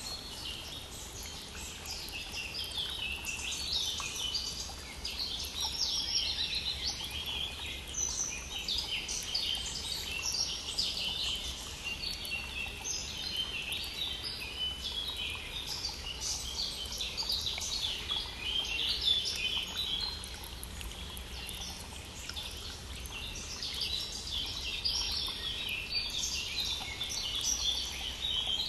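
A dense spring chorus of many songbirds, overlapping chirps and trills with no pause, over the steady rush of a brook.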